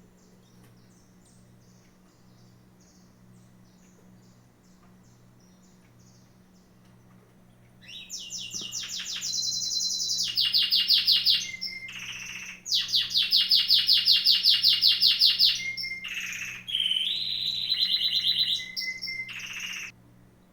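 A songbird singing close by: after a few faint chirps, loud, high, rapid trills come in three long phrases with short breaks between them.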